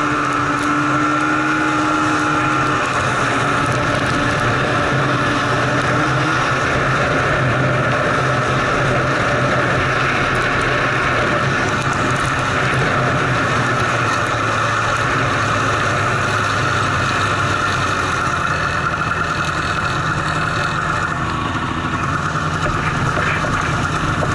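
Snowmobile engine running steadily while riding, heard from on board the sled.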